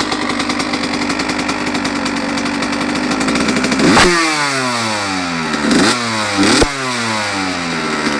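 1995 Husqvarna CR125's single-cylinder two-stroke engine, freshly overhauled and late in its run-in. It runs steadily, then is blipped three times, about four, six and six-and-a-half seconds in, the revs falling back after each.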